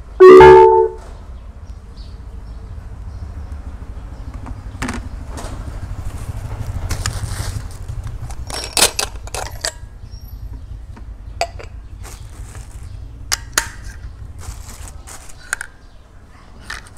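A loud, short electronic tone at the very start, then a steady low hum from the amplifier and its speaker. Scattered plastic crinkles and sharp clicks come from a handheld microphone being unwrapped and handled.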